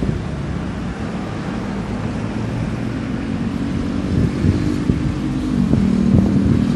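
Wind buffeting the microphone over the steady low hum of a vehicle engine running.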